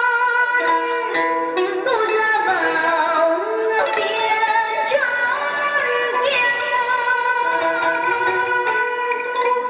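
Music playing: a melody of long held notes with slides between them, over a steady accompaniment.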